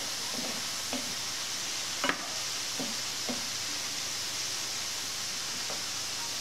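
Hot oil sizzling steadily around chicken of the woods mushroom pieces deep-frying in a pan, with a few light knocks and scrapes of a utensil against the pan as they are turned; the sharpest knock comes about two seconds in.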